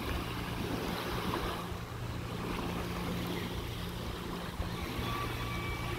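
Steady wind noise on the microphone over a low, steady hum.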